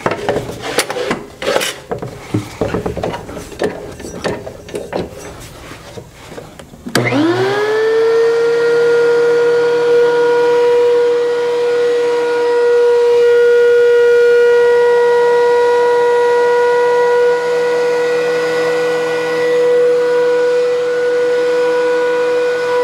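Wooden boards knocking and clattering as they are handled, then a benchtop thickness planer switched on about seven seconds in. Its motor and cutterhead whine rises quickly to a steady high pitch and runs evenly.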